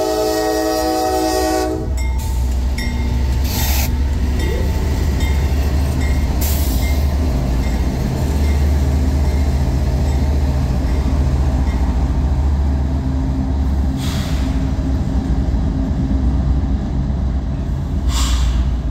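CSX diesel-electric locomotives running light and passing close by. A multi-note air horn sounds and cuts off about two seconds in. After that the diesel engines rumble steadily as the locomotives roll along the rails, with a few short hisses along the way.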